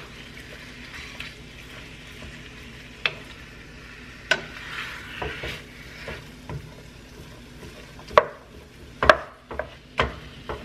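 Raw ground beef sizzling lightly in an oiled skillet while a wooden spoon breaks it up, scraping and knocking against the pan. The sharp knocks come more often in the last few seconds.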